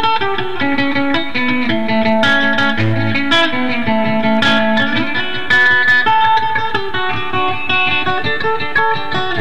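Two electric guitars playing together: quick picked notes over a lower line that shifts pitch and slides up about halfway through.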